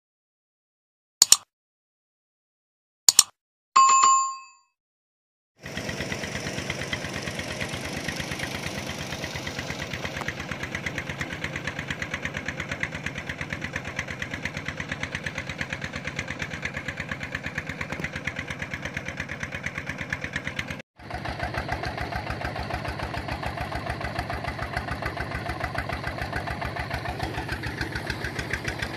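Two sharp clicks and a short chime, then from about six seconds a single-cylinder diesel pump engine running steadily with a fast, even thumping beat, broken off for an instant about three quarters of the way through.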